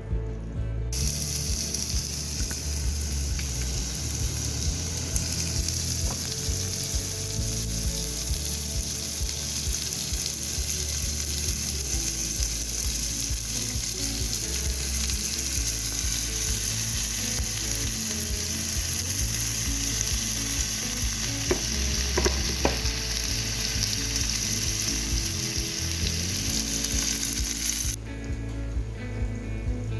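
Food frying in oil in a pan, a steady loud sizzle that starts about a second in and cuts off abruptly near the end.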